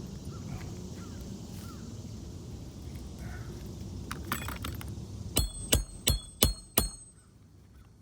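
Hammer striking a roof snake five times in quick succession, about three blows a second, each with a short metallic ring, driving a roofing nail in under a lifted asphalt shingle.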